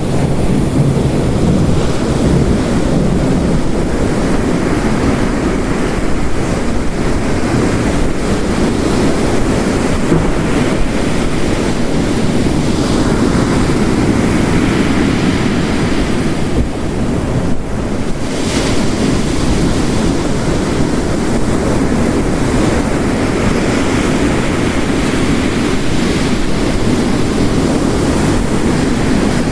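Steady, loud storm ambience: ocean waves crashing on the shore in slow surges, mixed with heavy rain.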